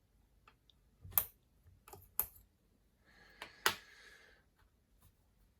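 Metal parts of a Pivofix Jacot tool being handled and fitted: a few sharp clicks and knocks, with a short sliding scrape about three seconds in.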